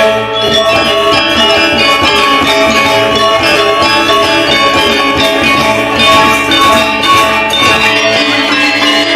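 Balinese gamelan ensemble playing a tabuh kreasi loudly: dense, interlocking ringing bronze metallophones and gongs with drums. The lowest notes drop away about eight seconds in.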